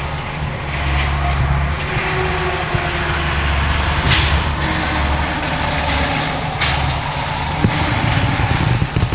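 A motor vehicle running, heard as a low, uneven rumble that swells and eases every second or two.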